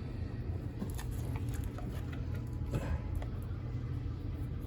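Faint handling noises from a toy parrot being worked on by hand: light scratching and a few small clicks from its plastic body and fur, over a steady low hum.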